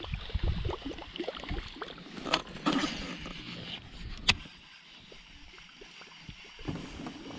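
Water lapping and sloshing against a fishing kayak's hull, with light clicks and knocks from handling a baitcasting rod and reel; one sharp click about four seconds in.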